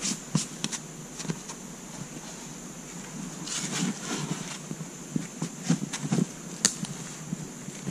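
A steady, high-pitched drone of insects, with scattered scuffs and taps of climbing shoes and hands on the sandstone as a climber moves up a boulder, and a stretch of rustling and scraping in the middle.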